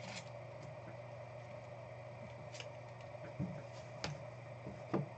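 Faint scattered clicks and light taps of trading cards and foil packs being handled on a table, over a steady low hum.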